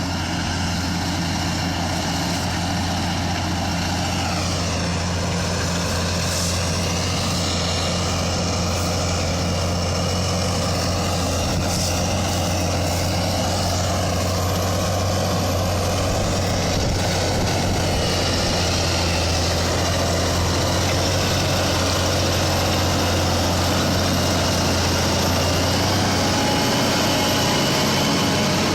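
Fendt 930 tractor's six-cylinder diesel engine running steadily under load while ploughing, with a higher whine that slides up and down in pitch.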